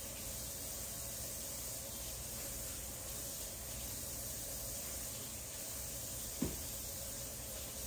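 Kitchen tap running steadily as a wooden cutting board is rinsed under it, with a single knock about six and a half seconds in.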